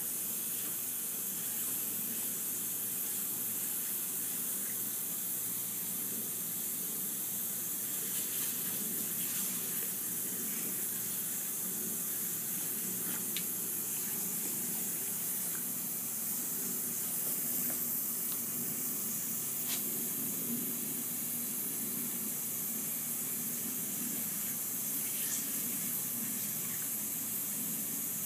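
Lawn sprinkler head spraying with a steady hiss, the water splashing against a pug's face as it pushes its head into the jet. A few faint ticks.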